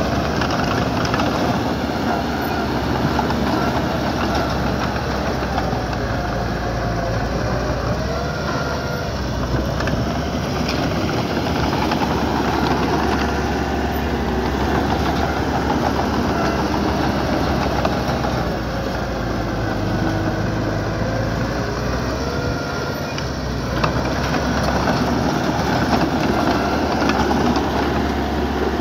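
Diesel engine of small earthmoving equipment running steadily under work, with a faint whine that rises and falls now and then.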